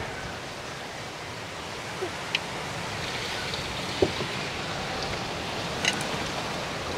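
Banana fritters deep-frying in a pan of hot oil: a steady sizzle, with a few faint clicks.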